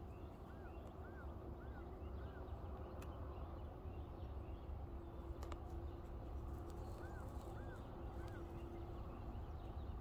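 A songbird whistling a short series of arched notes about two a second, four near the start and three more a little past the middle, over a faint steady low rumble and hum.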